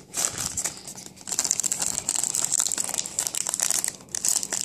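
Plastic wrapping crinkling steadily as a pack of trading cards is handled and opened, with some tearing.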